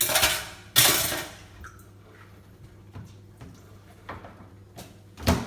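Water splashing in two short gushes as small dishes are washed, followed by scattered clinks and knocks of the dishes against each other, the loudest knock near the end.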